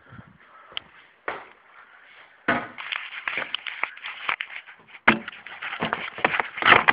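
Quick, irregular knocks and clicks: a few single ones at first, then a dense clattering run from about two and a half seconds in.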